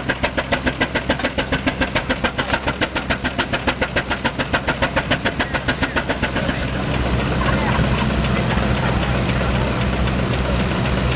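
Steam traction engine running under belt load on a dynamometer, its exhaust chuffing about five times a second. Near the sixth second a brief high hiss sounds, after which the chuffs give way to a steadier, slightly louder rumble.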